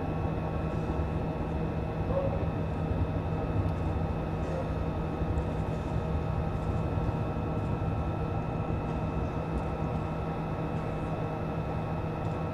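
Steady rumble inside a Soyuz crew capsule during the rocket's second-stage burn, with a few constant tones held over the noise throughout.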